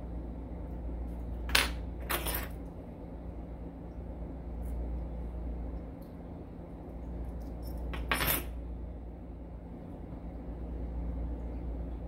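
Small metal parts of an Evva 3KS lock clicking and clinking as they are handled and fitted during reassembly: a sharp click about a second and a half in, a short rattle just after, and another clink about eight seconds in, over a steady low hum.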